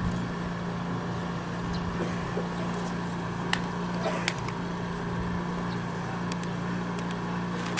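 A steady low hum over background hiss, with a few faint sharp clicks about three and a half and four seconds in.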